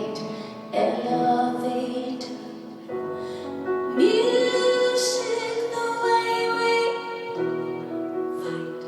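Live music: a woman singing long held notes over piano, the voice swelling into a louder sustained note about four seconds in.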